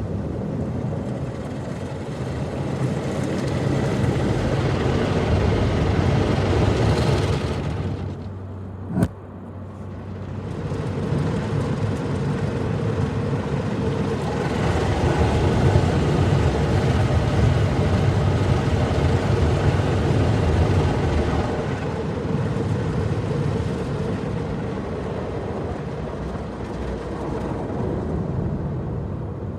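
Car wash machinery running around a car: a steady rumble and rush of noise, with a short lull and one sharp click about nine seconds in.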